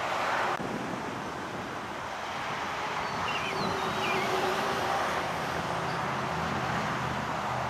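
Steady outdoor road-traffic noise, with a motor vehicle's engine hum coming in from about six seconds in.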